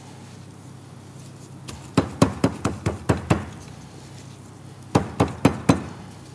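Rapid sharp knocks, like blows on a board or counter: a run of about seven quick strikes about two seconds in, then a run of four more near the end.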